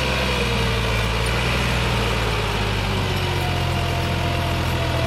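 Massey Ferguson 260 tractor's turbocharged diesel engine running steadily under heavy load, hauling a trolley heaped with soil.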